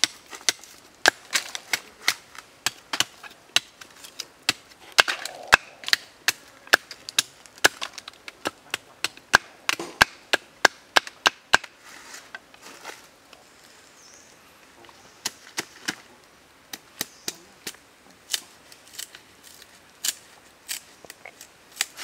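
Knife blade chopping a green stick into a point: a quick series of sharp chops, about two or three a second, thinning out with a short pause past the middle.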